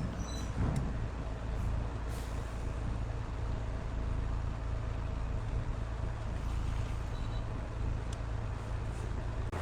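Wood lathe running steadily with a low motor hum, a few light clicks over it.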